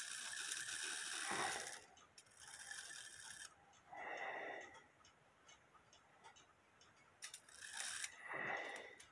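Antique cuckoo clock's brass movement turned by hand at the minute hand arbor: a faint steady ratcheting whirr of the wheels for about two seconds, then a few short separate clicks and rattles as the strike side is brought toward warning, which is not working properly here.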